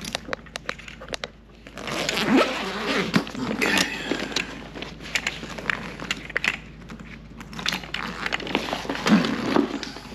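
Clicks, rattles and scraping from hands handling the plastic and metal parts of an old bathroom exhaust fan, with two longer stretches of scraping and rustling, about two seconds in and again near the end.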